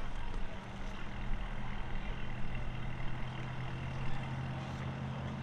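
A distant engine idling, a steady low hum, with low wind rumble on the microphone.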